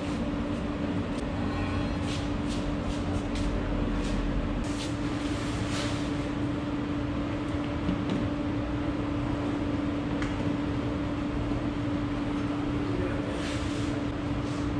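A steady machine hum holding one constant tone over a hiss, with scattered light clicks and clinks of hand work, several between about two and six seconds in and a few more near the end.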